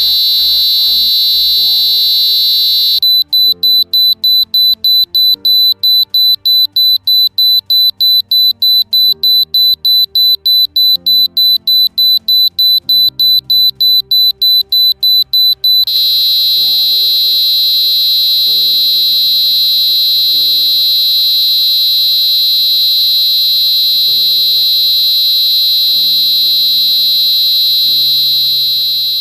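Buzzer in a 555 timer ticking-sound circuit sounding a high, shrill tone: steady at first, switching about three seconds in to rapid even beeping at about three beeps a second, then back to a steady tone about sixteen seconds in that fades near the end.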